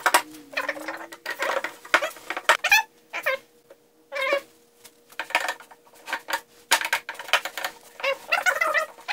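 Rag and nitrile-gloved hands rubbing the painted surface of a cast-iron table-saw part, giving a run of short, wavering squeaks in quick strokes with brief pauses between them.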